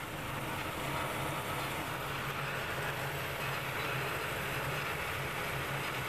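Gas furnace running with its burners lit: a steady low hum under an even rushing noise.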